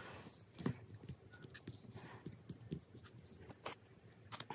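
Faint, irregular small clicks and soft rustles of hands working on gel nail strips, pressing and smoothing them onto the fingernails.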